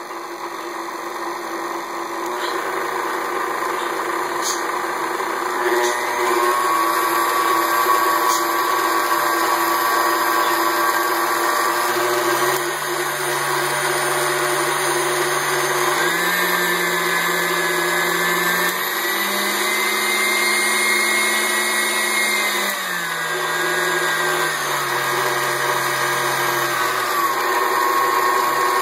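KitchenAid Artisan stand mixer running with a grinding from its gearbox, the sign of a stripped gear after mixing dough at too high a speed. Its speed is stepped up three times partway through and stepped back down near the end, the motor's pitch rising and falling with each step.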